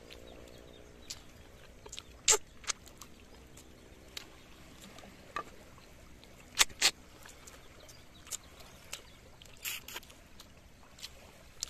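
Scattered sharp clicks and smacks of two people eating fish by hand off plates, a few at a time with pauses between. A faint steady hum sits underneath through the first half and fades out.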